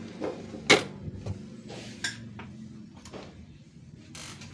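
Metal knocks and scrapes from a Matrix cup sealer's sliding stainless cup tray being pulled out and handled, with one sharp clack under a second in and a few softer knocks after.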